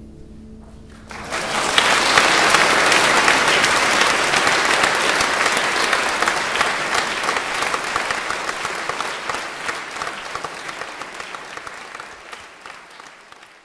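Audience applauding at the close of a choir's song. The last sung chord fades out in the first second. The clapping breaks out about a second in, swells within a second, then slowly dies away toward the end.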